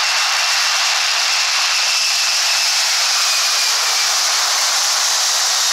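Airliner jet engines at takeoff power: a loud, steady rushing noise with a faint high whine that fades about four seconds in.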